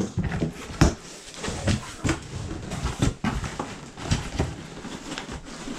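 A cardboard box being opened by hand: packing tape being pulled and flaps scraped and knocked in irregular bursts, with the tape resisting breaking.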